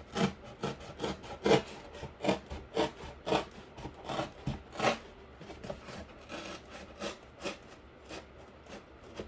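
Knife sawing through cardboard in short back-and-forth strokes, about two a second, growing fainter in the second half.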